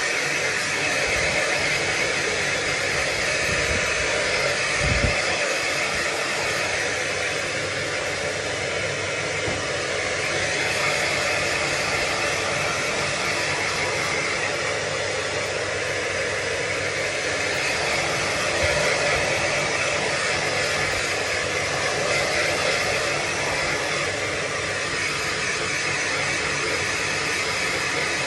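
Handheld hair dryer blowing steadily, with a brief low thump about five seconds in.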